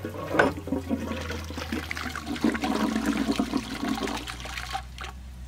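A 1920s Royal Doulton 'Renim' cast-iron high-level cistern flushing through its bell siphon, water rushing down into the toilet pan and fading out near the end.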